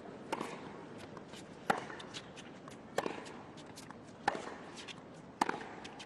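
Tennis ball struck back and forth in a baseline rally: five sharp racket hits about every second and a quarter, with fainter knocks between them.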